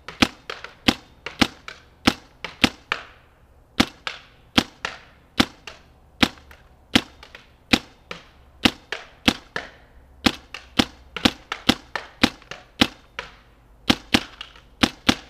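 Paintball marker firing shot after shot, sharp pops at an uneven pace of about two a second.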